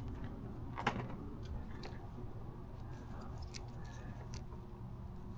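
Faint handling noises of wires being fitted into a lever-type quick-connect wire connector by hand: a few small clicks and ticks, the clearest about a second in, over a low steady hum.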